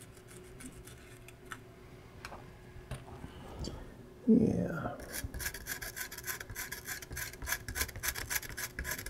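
Fiberglass scratch pen scrubbing battery-leak corrosion off the copper traces of a circuit board, a rapid scratchy rasp that starts about five seconds in after a quiet stretch.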